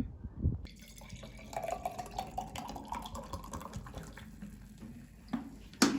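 Liquid running or pouring into a container, with a sharp click near the end.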